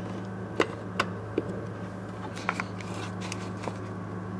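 Scattered light clicks and taps of a hand handling the plastic headlight bulb connector and rubber boot at the back of a headlight housing, a few sharp ticks spread over the seconds, over a steady low hum.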